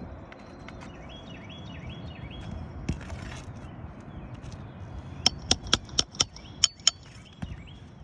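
About seven sharp, ringing hammer strikes in quick succession, metal on metal, as shingle nails are worked loose during a roof shingle repair.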